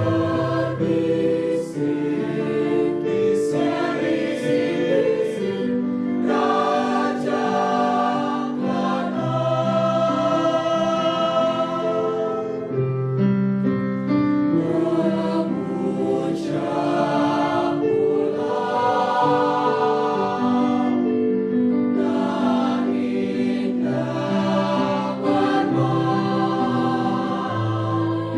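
School choir singing in several-part harmony, with slow held chords that shift every second or so.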